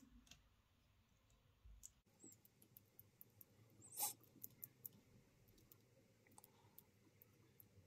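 Near silence with faint scattered ticks and rustles of hands winding and handling fly-tying thread on a hook held in a vise, and one short, louder scrape about four seconds in.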